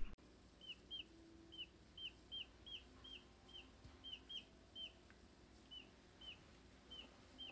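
Dominique chicks peeping faintly: a steady run of short, high peeps, each falling in pitch, about two a second.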